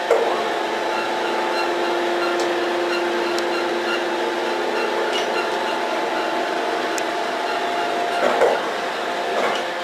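Steady mechanical hum of a roadheader's hydraulics and motor running under load while a chain is pulled taut, with a few faint metallic ticks.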